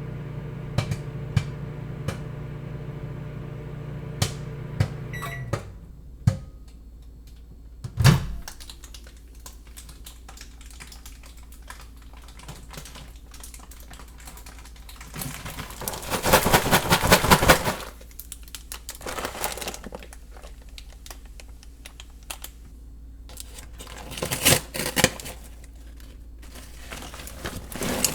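Microwave oven running with popcorn popping in scattered sharp pops, then the oven switching off about five and a half seconds in, cooking done, and a single thud a couple of seconds later. Bursts of rustling and handling noise follow as the popcorn bag is dealt with.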